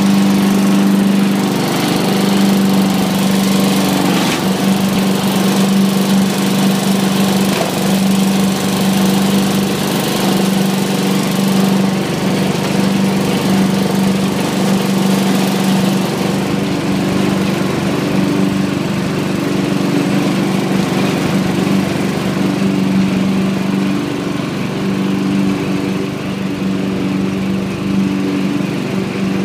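Lawn mower engine running steadily with a constant low hum while mowing grass.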